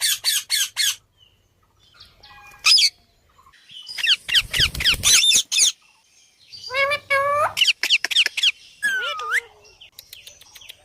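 Ringneck parrot calling in shrill squawks, in bursts: a quick run at the start, a dense cluster about four seconds in, and more calls, one sliding in pitch, near the end.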